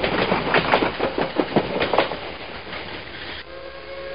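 Train wheels clattering rapidly over rail joints. About three and a half seconds in, a train horn starts, a steady chord of several tones, while the clatter fades.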